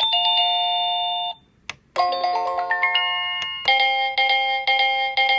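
Anpress wireless doorbell receiver playing its electronic musical chime tunes, stepping through the chime options. One tune cuts off a little over a second in, a click follows, then a new melody starts with a run of notes climbing in pitch and turns into a quick repeated figure.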